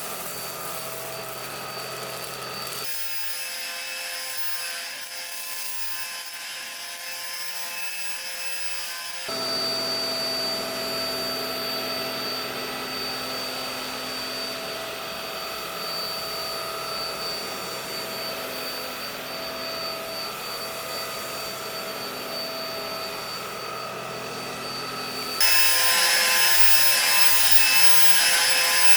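Roidmi X20 cordless stick vacuum running with a steady high motor whine. Its sound changes in steps, getting louder about nine seconds in and much louder and hissier near the end.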